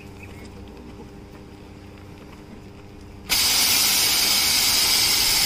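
A low steady hum, then about three seconds in a water-mist fire extinguisher's lance opens with a sudden loud hiss of fine spray that keeps going. The water-mist extinguisher is driven by a compressed-air cylinder.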